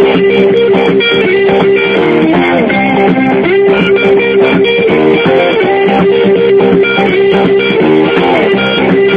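Background music led by electric guitar, with bass.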